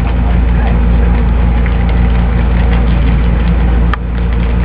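Loud, steady low hum with a buzzing overtone, dipping briefly with a click near the end.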